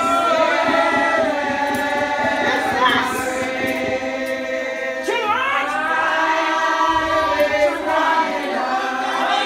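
A congregation of many voices singing a hymn together, holding long notes in slow phrases.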